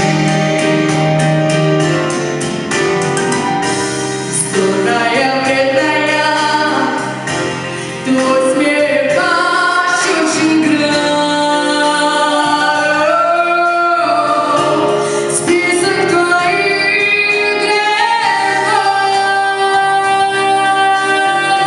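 Music: a song with a woman's singing voice held in long, gliding notes over instrumental backing.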